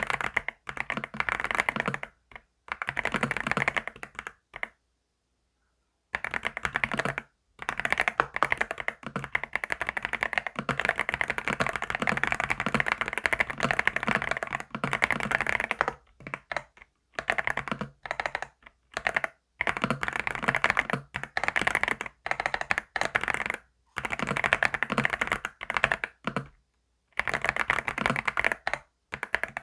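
Keys on a computer keyboard being typed fast in runs of a few seconds, clicks packed closely together, each run broken off by a brief silence.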